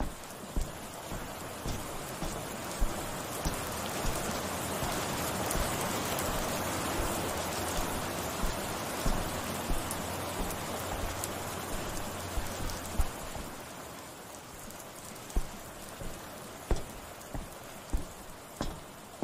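Steady rain falling, growing louder through the middle and easing off again, with footsteps sounding as sharp irregular steps every half second to a second, clearest at the start and near the end.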